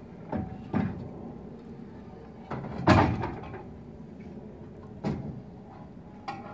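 Heavy metal clanks and knocks from a Jerr-Dan rollback's bed frame and hydraulic bed ram being levered by hand with a bar. The loudest clank, about three seconds in, rings briefly, with smaller knocks before and after it.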